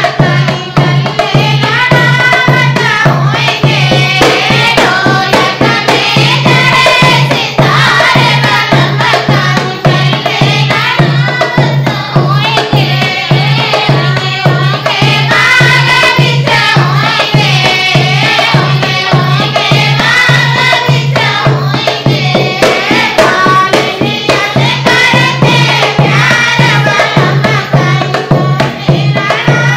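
Dehati folk dance song: a voice singing over a steady, even drum beat.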